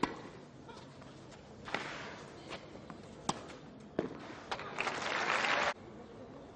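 Tennis ball struck back and forth by rackets in a doubles rally: six sharp pops spaced roughly half a second to a second and a half apart. Then a crowd cheers and applauds for about a second before the sound cuts off abruptly.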